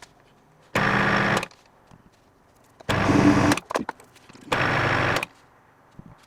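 Metal lathe motor switched on in short bursts, three runs of under a second each about every two seconds, each a steady hum with cutting noise, then quiet. This is the stop-start running used in single-point cutting of an 8 TPI thread, with the leadscrew kept engaged and the lathe reversed rather than using a threading dial.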